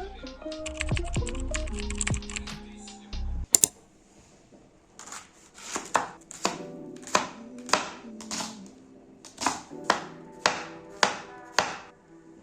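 Background music for about the first three seconds, then a quieter run of sharp, separate taps, roughly two a second, over faint music.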